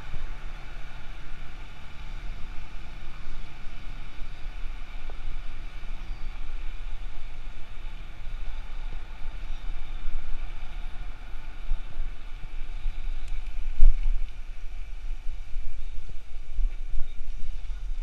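Wind rumbling and buffeting on the microphone of a riding cyclist's action camera, over road and traffic noise from the street. One sharp thump about fourteen seconds in.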